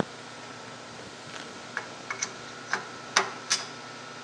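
Sharp metallic clicks and clinks of tooling being handled at a vertical milling machine while the drill chuck is swapped into the spindle. There are about seven irregular knocks, the loudest a little after three seconds in.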